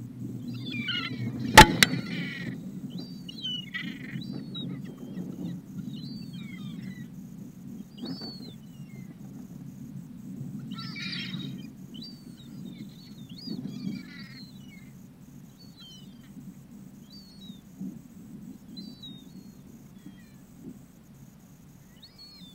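Gulls calling overhead: many short cries and yelps, thickest in the first half and growing sparser and fainter later. A sharp click about a second and a half in is the loudest sound, over a steady low rumble throughout.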